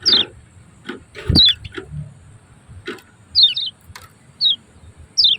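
Kecial kuning (Lombok white-eye) giving its sharp 'ciak ciak' call: short high notes that fall quickly in pitch, repeated roughly once a second, some doubled. Several clicks and one low thump about a second in sound between the calls.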